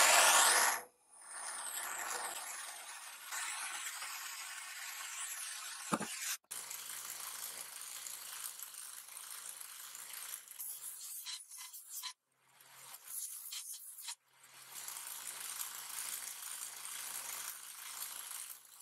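A brief loud hiss of a gas torch flame, then an electric belt sander running with a steady motor hum while a small perforated metal part is ground against the belt, a scraping grind that drops out briefly twice.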